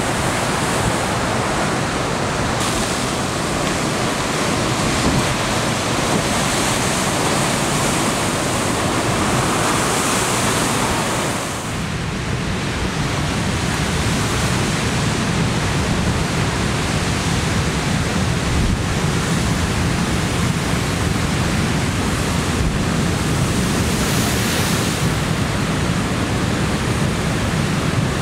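Pacific surf breaking on a basalt rock shore: a steady rush of waves. About twelve seconds in the sound dips briefly and then turns deeper, heavier surf churning among the rocks.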